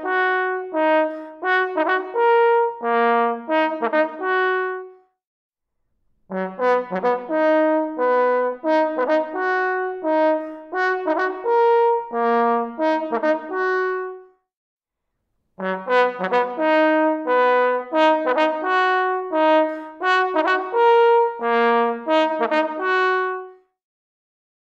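Solo trombone playing the same short passage of separate notes over and over, heard from about six feet away in a recital hall. It breaks off briefly twice between takes and stops about a second before the end.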